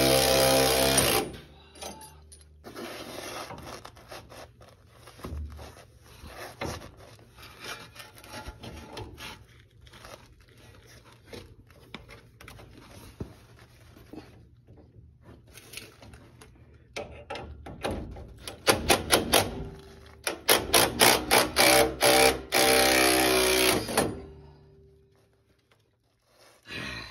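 Cordless Makita impact driver hammering in bursts on a lower control arm bolt that is seized in its bushing. A loud burst comes at the start, quieter clattering follows, and then long runs of rapid blows come near the end.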